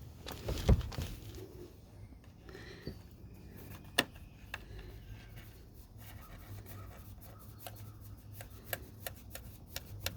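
Handling noises of wires being worked through a door jamb switch hole: scattered small clicks and rubbing, with a thump about a second in and a sharp click a few seconds later, over a faint steady low hum.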